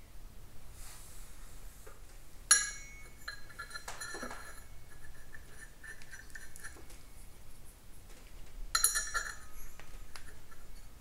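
Small metal parts clinking against a new V3 multi-plate clutch as its screws are loosely fitted. There are two sharp clinks, one about two and a half seconds in and one near the end, with lighter ringing clinks between them.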